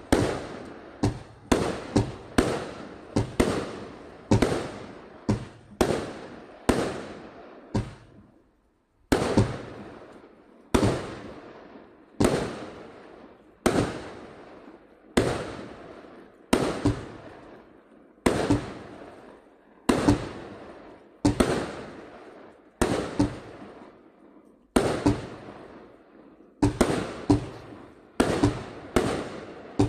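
A 100-shot fireworks cake firing shot after shot: sharp bangs of bursting shells, one to two a second, each dying away before the next, with a brief pause about eight seconds in.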